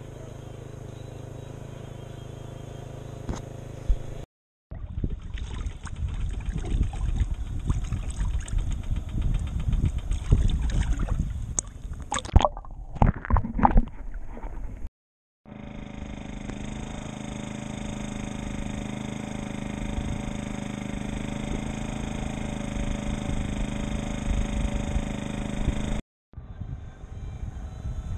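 A sailboat under way, with the steady hum of its motor and water rushing along the hull. Through the first half, rushing, gurgling underwater sound with loud irregular splashes comes to the fore; after that the steady motor hum returns. Three brief dropouts break the sound.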